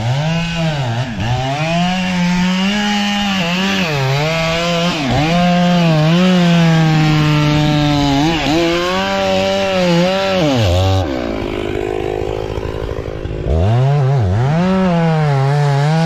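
Chainsaw cutting wood, its engine revving up and easing off again and again as the throttle is worked. About two-thirds through it drops back for a couple of seconds, then revs up again near the end.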